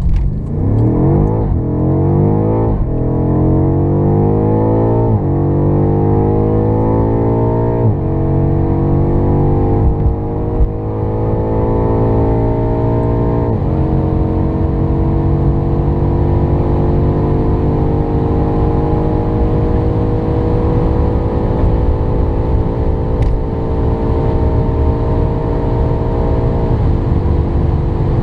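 2018 BMW M5 F90's twin-turbo V8 at full throttle on a launch-control run, heard from inside the cabin. The engine note climbs steadily through each gear, broken by six quick upshifts of the automatic gearbox from first to seventh gear, the gaps between shifts growing longer as the car nears 300 km/h.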